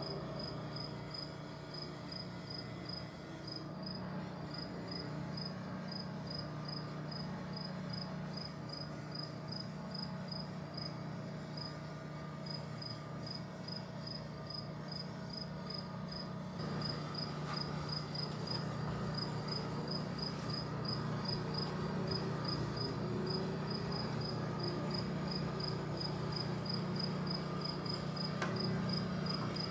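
Insect chirping in an even high-pitched pulse, about three chirps a second, over a low steady hum.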